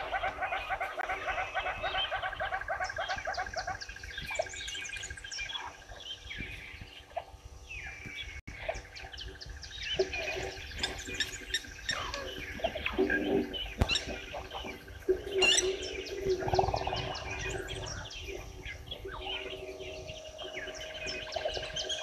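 Several wild birds chirping and calling, with many short, sharp calls and quick whistles throughout.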